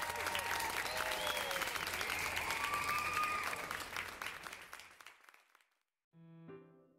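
Crowd applauding and cheering, a dense patter of claps with rising and falling cheers over it, fading out about five seconds in. A short pause follows, then a keyboard tune begins near the end.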